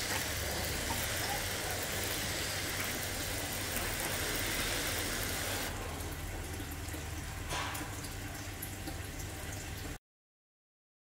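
Water sprayed as a fine steady mist from a sprayer onto potting soil in a small plastic pot, a hiss that stops about halfway through. A quieter, duller sound follows, then the audio cuts to silence near the end.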